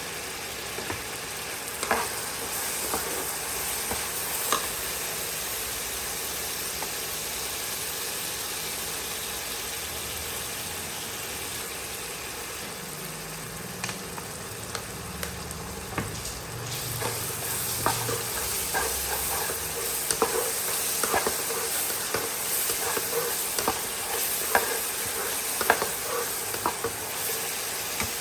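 Food sizzling as it fries in a pan, with a utensil tapping and scraping against the pan as the food is stirred; the taps come more often in the second half.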